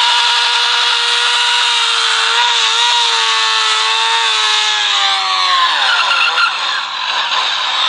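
A ringtone made from a recording of an engine bouncing on its rev limiter, played back through a small speaker with no bass. The high engine note holds steady, drops in pitch about five seconds in, then swoops down and up unevenly near the end.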